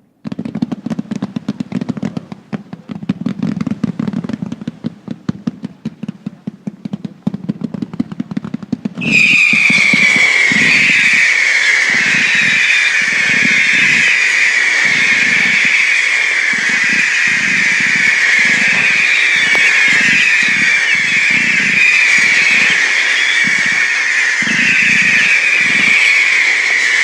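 Fireworks: a dense, rapid crackle of many small pops, then about nine seconds in a loud, shrill whistle starts suddenly and keeps going, its pitch sagging slightly in repeated waves, with irregular low thuds beneath it.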